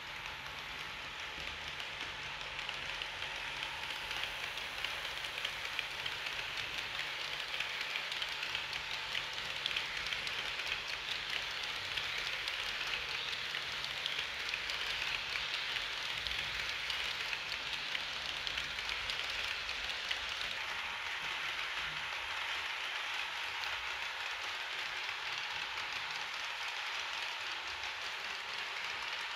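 HO-scale model train, an SBB Re 4/4 IV locomotive with its coaches, rolling along the track: a steady rattling hiss of small metal wheels on the rails, growing a little louder over the first few seconds as the train comes close, with a faint low hum underneath for most of it.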